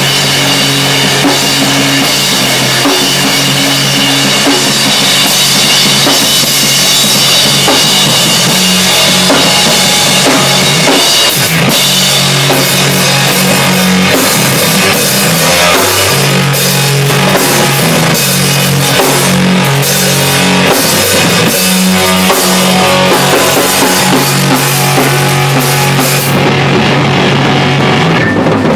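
Live rock band playing loudly: a drum kit with constant cymbals over held low notes that change every couple of seconds. The cymbal wash drops out near the end.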